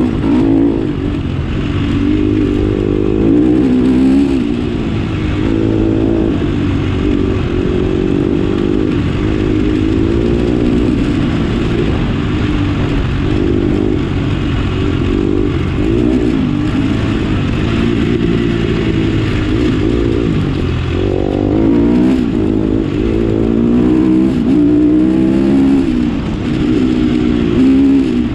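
Engine of an off-road vehicle running under constantly changing throttle, its pitch rising and falling every second or two.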